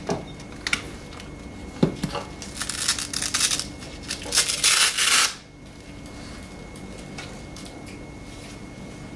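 Handling noises from a cordless drill fitted with a foam cleaning pad: a few knocks in the first couple of seconds, then two stretches of rustling and scuffing about three and five seconds in. A steady faint hum runs underneath.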